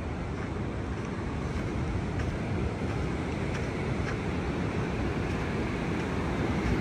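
Strong onshore wind buffeting the microphone as a steady low rumble, with heavy storm surf washing behind it.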